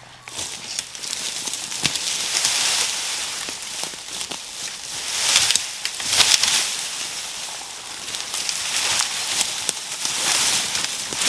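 A dead fallen branch dragged through dry woodland undergrowth: rustling and crackling in irregular swells, with twigs snapping and scraping.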